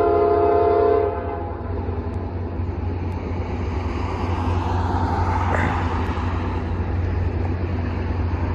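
Diesel locomotive air horn sounding a steady multi-note chord that cuts off about a second in, followed by the low, steady rumble of the approaching diesel locomotives, a GE AC4400CW leading with an EMD SD60.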